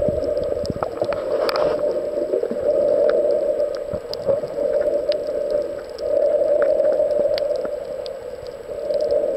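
Muffled underwater ambience heard below the surface: a steady rushing that swells and fades every few seconds, with scattered sharp clicks.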